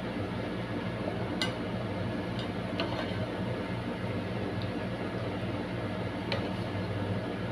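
A few light clinks of a spoon against a glass baking dish as béchamel sauce is spread over macaroni, over a steady low hum.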